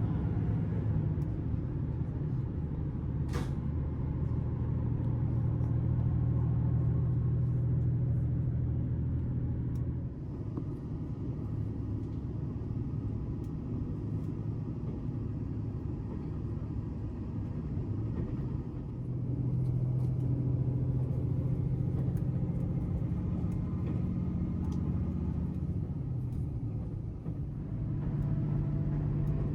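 Diesel railcar engine running with a steady low rumble. It eases off about a third of the way in and builds again past the middle. There is one short sharp click a few seconds in.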